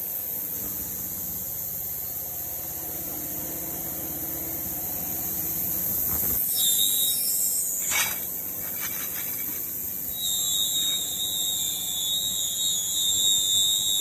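Industrial ultrasonic cleaning tank running: a steady high-pitched whine over the rush of churning water. A second, sharper tone comes in about six and a half seconds in and grows stronger from about ten seconds, with a single knock near eight seconds.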